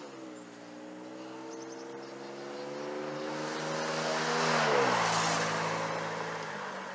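A motor vehicle's engine approaching and passing by. It gets louder to a peak about five seconds in, where its pitch drops, then fades away.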